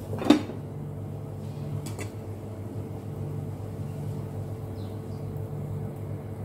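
Glass lid set down on a frying pan with a sharp clink about a third of a second in, then a lighter click about two seconds in, over a steady low hum.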